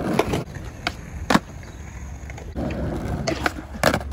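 Skateboard wheels rolling over concrete with a low rumble, broken by sharp clacks of the board against the ground, the loudest about a second and a half in and again near the end.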